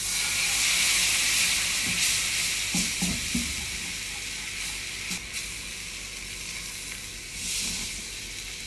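Milk sizzling as it is poured into a hot flour-and-oil roux in a non-stick frying pan and stirred with a wooden spatula, the start of a thick white paste. The sizzle is loudest at first and slowly fades, with a few light knocks of the spatula against the pan about three seconds in and again around five.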